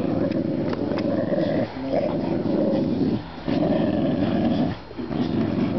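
Dog growling in long low growls, broken three times by brief pauses for breath.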